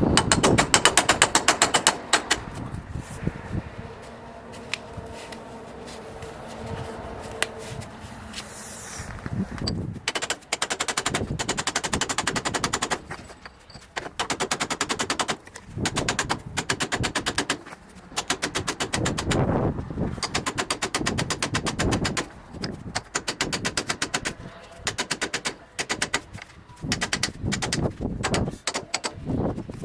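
Ratchet wrench clicking in quick runs of one to two seconds, tightening the mounting bolts of a pillow block bearing, with a quieter pause in the middle.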